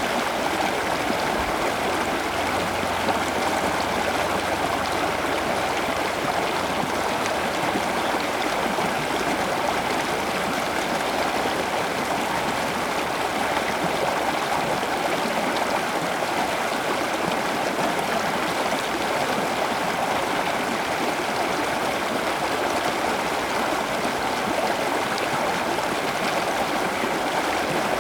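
Steady, unbroken rush of running water, like a stream or garden water feature, with no change in level throughout.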